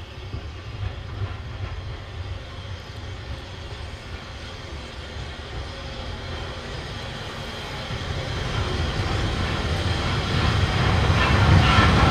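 Small steam tank locomotive approaching along the platform road, a low rumble that grows steadily louder as it draws near. A brighter rattling and hissing joins in near the end as the engine comes close.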